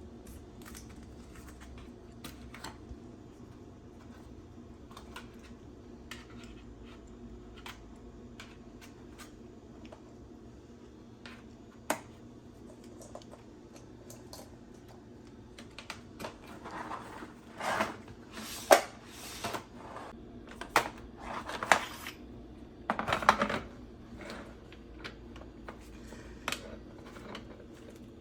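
Light clicks and knocks of under-sink organizer rods and braces being handled and fitted together. About sixteen seconds in comes a busier stretch of louder clicks and short rattles, the loudest sharp click near the middle of it, before the sounds thin out to scattered ticks again.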